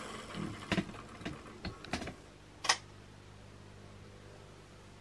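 OO-gauge Hornby class 37 model locomotive running on its test track, freshly serviced and running lurchily. A run of irregular sharp clicks and rattles sounds over the first three seconds, the sharpest near three seconds in. Then only a faint steady hum from its motor is left.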